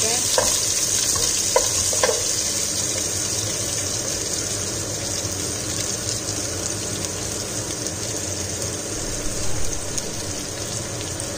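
Sliced onions frying in hot ghee in a nonstick pot: a steady sizzling hiss, with a few light knocks of a wooden spatula stirring in the first couple of seconds.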